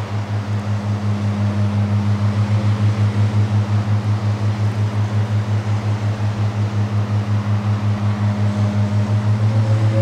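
Handheld gong sounding a sustained low hum that pulses about three times a second, with a tone an octave higher coming in just after the start; near the end, several higher ringing tones join.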